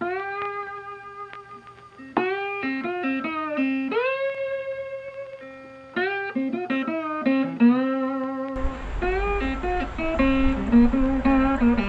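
Blues-style guitar music with notes that slide and bend up into pitch. About two-thirds of the way in, a steady rush of outdoor rain and wind noise joins beneath it.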